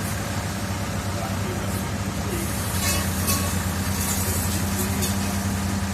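A heavy construction machine's engine running steadily at a low, even pitch while it is being driven and tested, with a few brief high hisses around the middle.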